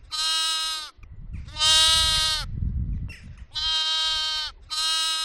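A lamb bleating four times, each bleat a high, steady call lasting about a second.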